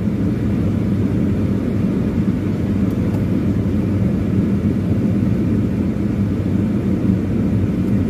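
Car's air-conditioning fan blowing hard inside the cabin over the steady low hum of the running engine, cooling down the sun-heated car.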